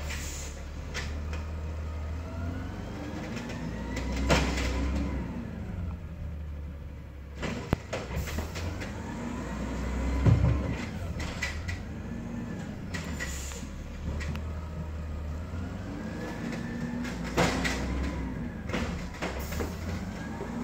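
Automated side-loader garbage truck working its cart arm: the diesel engine's rumble swells and eases about three times, with a whine that rises and falls in pitch each cycle. Sharp knocks and bangs come as the carts are lifted, shaken out and set down.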